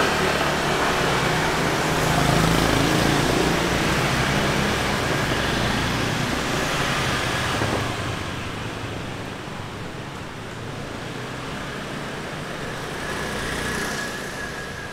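A motor scooter's engine running close by, moving off along the lane and fading after about eight seconds, over a light hum of street traffic.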